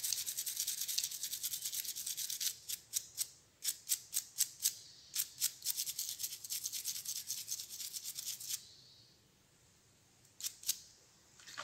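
Toothbrush bristles scrubbing a metal ring wet with soapy water, brisk back-and-forth strokes that wash off polishing residue. The scrubbing is continuous at first, then breaks into separate strokes, stops for about two seconds near the end, and resumes briefly.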